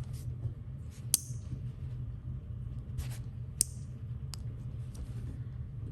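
Fidget slider parts being handled and worked at while a piece is stuck inside: three sharp small clicks and a few short scraping sounds, over a steady low hum.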